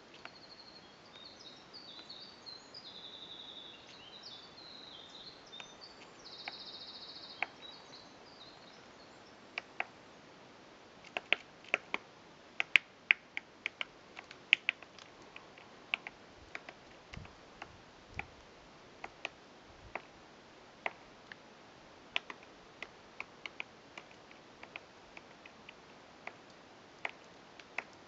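High, chirpy bird calls with a brief trill for the first several seconds. Then a woodpecker pecks at a tree: sharp single knocks at uneven intervals, thickest a few seconds after they begin, typical of foraging taps rather than a drumming roll.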